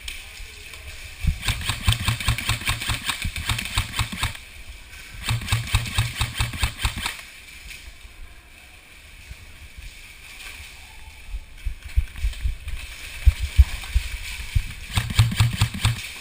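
Airsoft rifle firing long full-auto bursts, a rapid even chatter of shots: two bursts of two to three seconds each close together early on, and a third near the end. A few dull thumps come in between.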